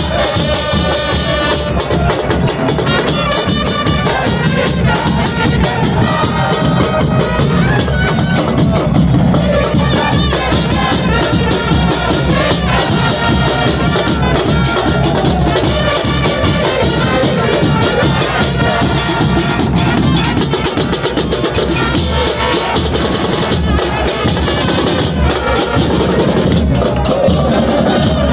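A stand of football supporters singing a chant together to the beat of big bass drums, with trumpets playing along, loud and unbroken.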